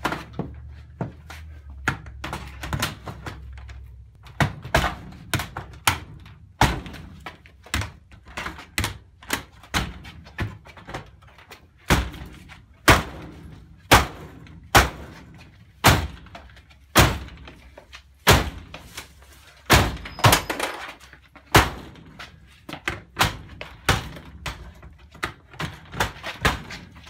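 Security screen door being hit and pried at with a pry bar during a forced-entry attack: a long irregular series of loud bangs and thunks, about one or two a second, with short metallic rattles between blows. The screen and frame hold.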